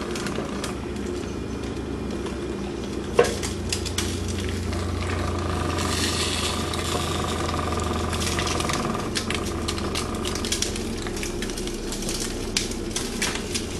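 Whole tilapia sizzling in its juices on a foil-lined oven tray while being turned with a plastic spatula, with scraping and crinkling of the foil and a sharp click about three seconds in. A steady low hum runs underneath.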